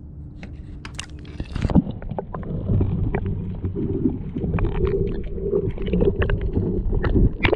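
A camera plunged into the sea about a second and a half in, with a brief splash, then heard from underwater: a steady muffled rumble with scattered clicks and pops.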